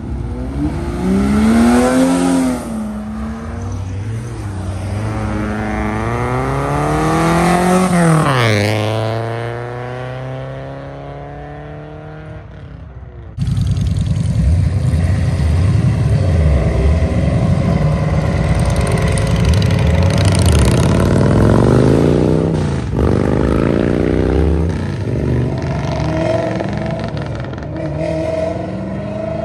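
Car engines revving, their pitch climbing and then falling back several times. About thirteen seconds in, the sound switches suddenly to a louder, rougher engine with more rises and falls in pitch.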